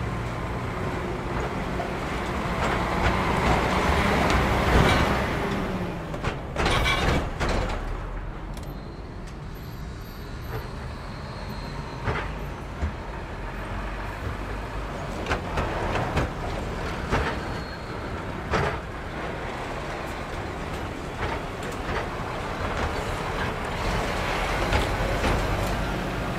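Cars and heavy lorries driving across a road level crossing: engines running and tyre noise, with a series of knocks and clatters as wheels go over the rails and crossing panels. Traffic gets louder near the end as a multi-axle semi-trailer passes close by.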